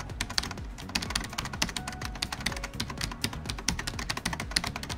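Quick, irregular clicks of keyboard typing, used as a sound effect for text being typed out on screen.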